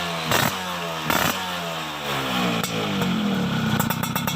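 Yamaha F1ZR two-stroke single-cylinder engine breathing through an aftermarket chrome-plate expansion-chamber exhaust with a carbon silencer. The throttle is let off from high revs. There are two short blips about half a second and a second in, then the revs sink slowly toward idle for about three seconds and pick up again near the end.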